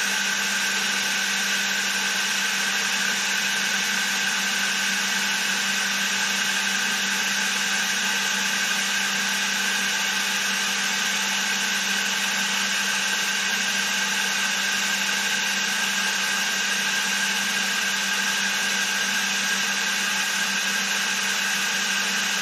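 Milling machine running steadily with an even, unchanging hum and whine, its spindle turning an edge finder while the table is brought to zero.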